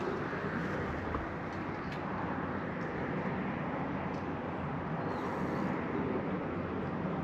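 Steady outdoor background rumble with no distinct events.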